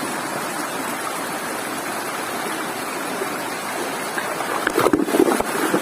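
River water flowing steadily over its bed, a constant rushing noise. A few short knocks or splashes come about five seconds in.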